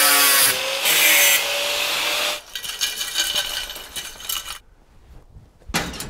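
Angle grinder cutting into a metal wheel rim, a steady whine under the hiss of the cut, stopping about two and a half seconds in. Light metallic clatter and rubbing follow as the cut rim is handled.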